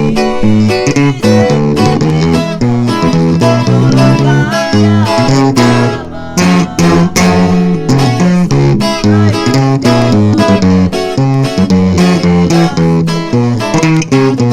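Regional Mexican band playing an instrumental guitar passage: plucked guitar melody over strummed guitar and bass, with a brief drop in level about six seconds in.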